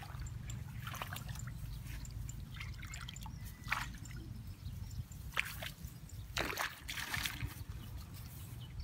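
Shallow muddy rice-paddy water being stirred by hand, with a handful of short splashes and drips, the clearest a little before the middle and about two-thirds of the way through, over a low steady rumble.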